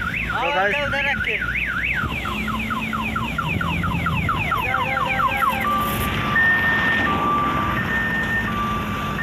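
Electronic multi-tone vehicle alarm siren cycling through its patterns: a fast warble, then a run of quick falling sweeps, then alternating two-tone beeps about halfway through. A heavy truck engine runs low and steady underneath.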